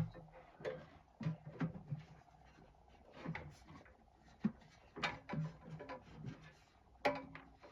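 Scattered light clicks, knocks and scrapes of heater parts and tools being handled while a Chinese diesel heater is reassembled. There is a sharp knock at the very start and another about seven seconds in.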